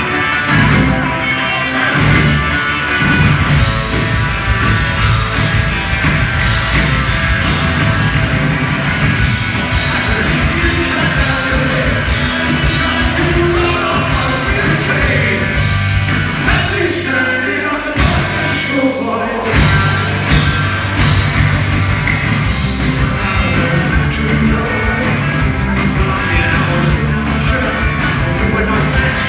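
Live rock band playing loud, heard from the audience in a hall: drums, electric guitar and bass guitar, with a male lead vocal. The bass and drums drop out for a moment about two-thirds of the way through, then come back in.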